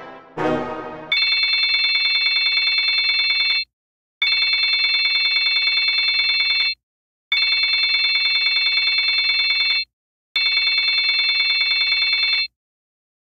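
A telephone ringing in four long, trilling rings with short pauses between them.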